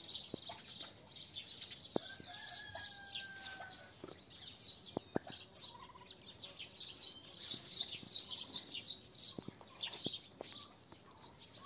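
Small birds chirping and twittering, with a rooster crowing once in a long drawn-out call about two seconds in.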